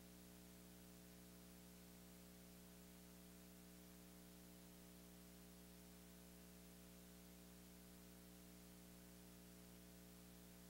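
Near silence: a faint, steady hum with hiss, the recording's background noise floor.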